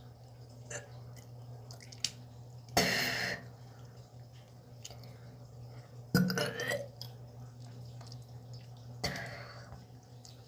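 Three burps, each under a second long and spaced about three seconds apart, over a steady low hum.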